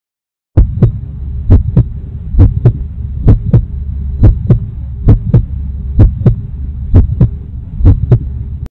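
Heartbeat sound effect: nine lub-dub double thumps, about one a second, over a steady low hum. It starts about half a second in.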